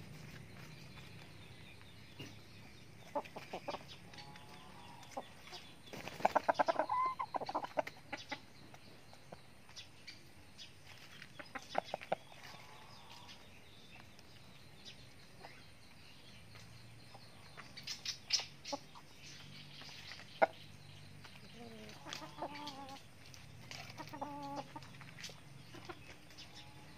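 Backyard chickens, a rooster and hens, clucking with short calls while foraging, over scattered sharp taps and rustles; the loudest flurry of taps and calls comes about six seconds in, and a few clucks come near the end.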